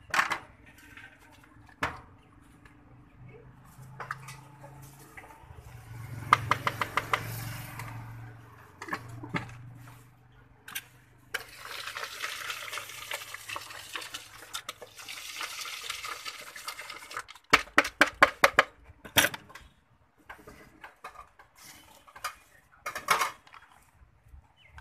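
Jhal muri mix of puffed rice and spices being shaken in a lidded red plastic jug, with plastic clatter and knocks. There is a run of quick rattles, then a long steady rustling shake in the middle, then a cluster of sharp knocks.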